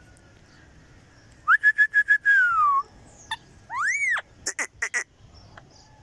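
Rose-ringed parakeet whistling: a quick run of about five short whistled notes, the last one sliding down, then a single note that rises and falls, and a few sharp chirps near the end.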